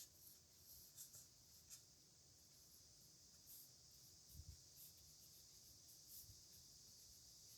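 Faint scratching of a dip pen's metal nib on paper, with soft irregular scratchy ticks as strokes are drawn, and a faint low knock about halfway through.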